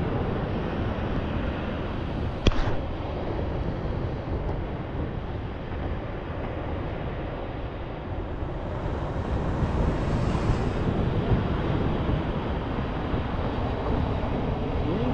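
Wind buffeting the microphone over the steady wash of ocean surf, with one sharp click about two and a half seconds in.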